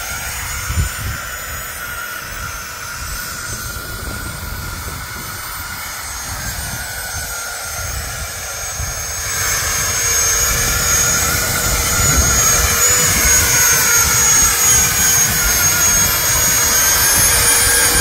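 Twin 90 mm electric ducted fans of a radio-controlled F-35B VTOL model whining steadily while it hovers, the pitch wavering a little as the fans adjust. The whine grows louder about halfway through as the model comes closer. Wind rumbles on the microphone underneath.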